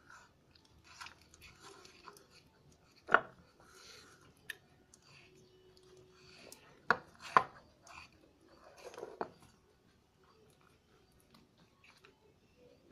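Homemade clay slime being stirred and worked in its container, with soft sticky squishing and rubbing. It is broken by a few sharp knocks, probably the stirrer or container, about three seconds in and twice close together near the middle.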